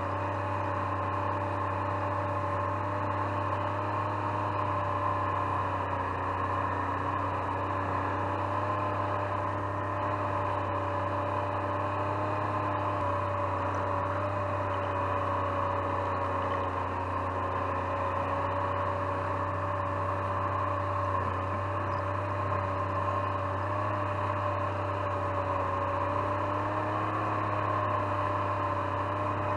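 Snowmobile engine running steadily while towing a homemade trail-groomer drag over the snow, a constant drone with a slight change in pitch about 13 seconds in.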